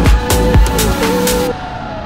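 Electronic dance music with a heavy, steady beat that cuts off suddenly about one and a half seconds in. It leaves a steady motor whine that wavers slowly in pitch.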